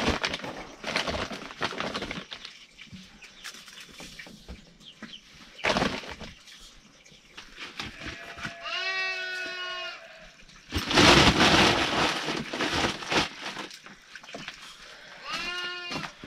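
Bleating from the flock in a sheep hut: one wavering call a little past halfway and a shorter one near the end. Scattered knocks and rustles run between them, with a few seconds of loud rustling noise just after the first call.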